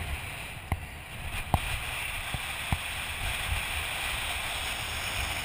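Strong wind buffeting the camera microphone on an exposed sand dune, a steady rumbling hiss, with four sharp clicks in the first three seconds.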